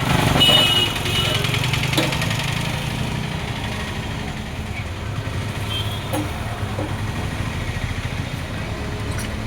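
Diesel engine of a JCB 3DX backhoe loader running steadily, louder for the first second and a half.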